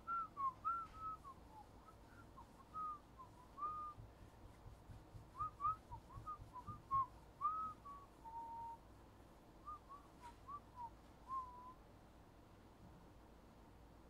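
A person whistling a tune in short, quick notes with a few longer held ones, stopping near the end.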